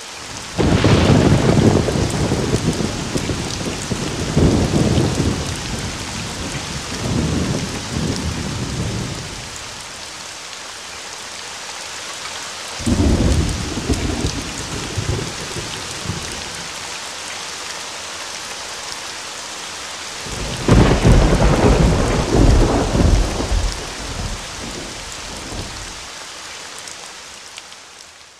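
Steady rain with thunder rolling three times: a sudden clap about half a second in that rumbles on for several seconds, a second roll about halfway through, and a third sudden clap later on that rumbles for about five seconds. The rain fades out near the end.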